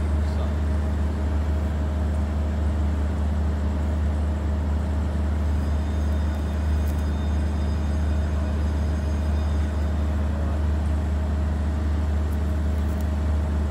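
Steady low rumble with no change in level, with a few faint, thin high tones for several seconds in the middle.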